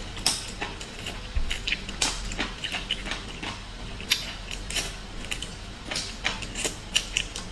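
Close-up eating sounds of small sea snails: irregular sharp clicks and smacks of the shells and mouth, several a second.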